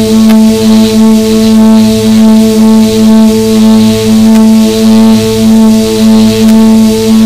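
Quadcopter's four brushless motors (Quanum MT 2814 880KV) spinning 10-inch carbon-fibre propellers, humming steadily in a hover with a low droning note and overtones over a hiss, heard from the camera on board. The hum wavers in loudness about twice a second.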